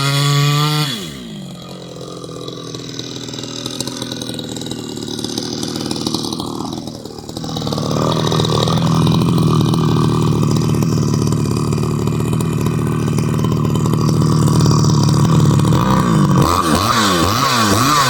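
Chinese 62cc two-stroke chainsaw with a home-made extractor-style muffler, cutting timber. It runs at high revs, drops back about a second in, then holds high, steady revs from about eight seconds in. Near the end it is revved up and down several times.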